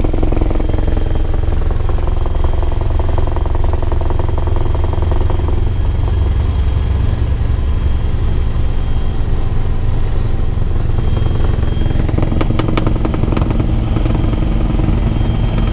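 Steady in-cabin noise of a Bell 412 helicopter in flight: rotor beat and twin-turbine engine noise, with a thin high tone held throughout. A few short clicks or rattles come about twelve seconds in.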